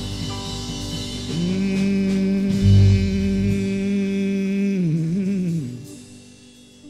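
Live gospel music closing out a song: a long note is held from about a second in, then wavers downward and fades out near the end, with a single low thump around the middle.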